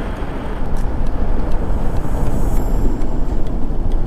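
Wind rushing over the microphone of a TVS Apache 160 4V motorcycle on the move, with the engine and tyre noise under a heavy low rumble. It gets a little louder after about a second.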